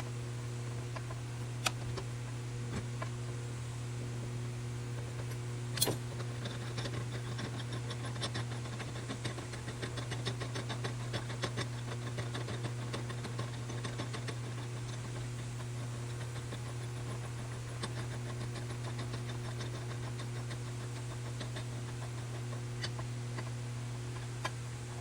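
Steady low hum with light clicks and taps scattered over it, and one sharper click about six seconds in.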